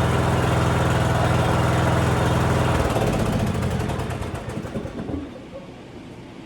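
Riding lawn mower's small engine running steadily, then shut off about three seconds in and spinning down to a stop. The mower runs now that its clutch safety switch works.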